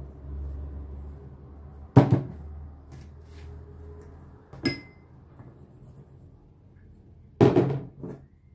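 Kitchen containers knocking on a counter while dough ingredients are added: a sharp knock about two seconds in, a light ringing clink near the middle, and a louder knock followed by a smaller one near the end.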